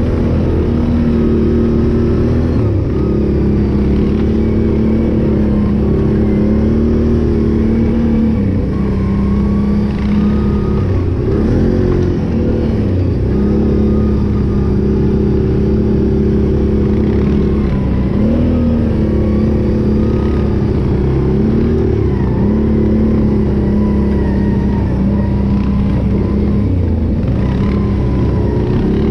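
Can-Am Renegade 800 ATV's V-twin engine running under steady throttle, its pitch dipping and picking up again several times as the throttle is eased off and reapplied.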